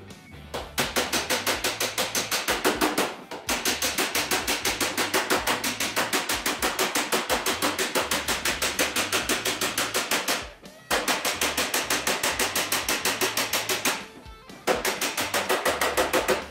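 Hammer rapidly striking the steel skin along the front edge of a classic Mini door, about six blows a second in long runs broken by brief pauses. The blows are stretching the door skin to lengthen the door and close up its panel gaps.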